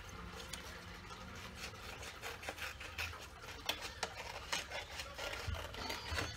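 Scissors snipping through a cheap paper plate: a run of irregular small snips and crunches, over a faint steady hum.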